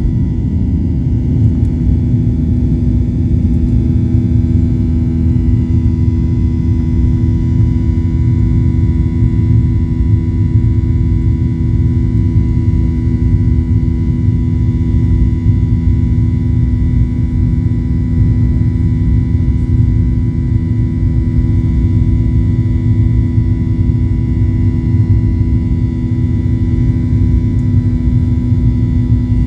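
Airliner engines at take-off power heard from inside the passenger cabin: a steady rumble with a constant hum over it, unchanged through the take-off roll and the climb-out.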